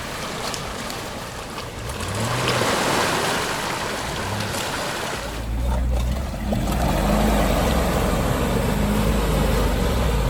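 An off-road vehicle's engine working under load in mud and water, with churning, splashing noise. About five seconds in, a deep, heavy engine rumble comes in and the engine note rises and falls as the throttle is worked.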